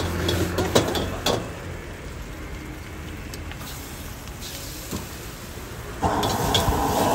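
A metal wok ladle clanks and scrapes against a wok during stir-frying for the first second or so, then the cooking goes quieter with only a few faint taps. About six seconds in, the gas wok burner is turned up and its steady roar starts abruptly.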